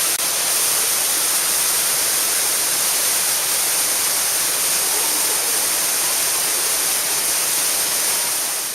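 Waterfall: the steady, loud rush of falling water, fading near the end.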